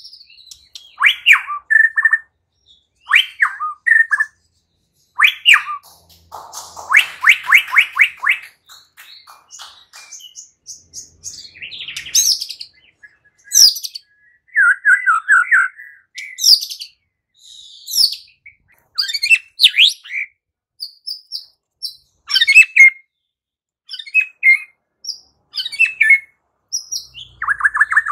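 White-rumped shama singing a varied run of short phrases: clear whistles, high chirps and rattling trills. A fast rattling trill comes about a quarter of the way in and again at the very end.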